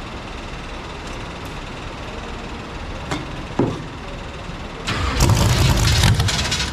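A steady engine rumble in the background. About five seconds in, a car engine starts up and runs loud and rough.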